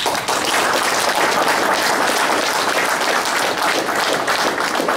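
Room audience applauding a plaque presentation, many people clapping steadily, tapering off near the end.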